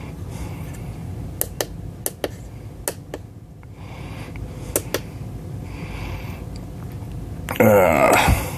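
Sharp clicks, mostly in pairs, as controls on the bench current source are pressed to step the test current up to 1 milliamp. Near the end comes a louder scraping noise lasting under a second.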